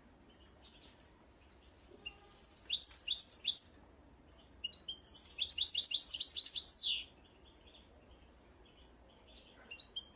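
A small songbird singing outdoors: short phrases of quick, high notes, each falling in pitch. Two full phrases come a couple of seconds apart, the second ending in a longer falling note, and a third begins near the end, over a low steady outdoor hiss.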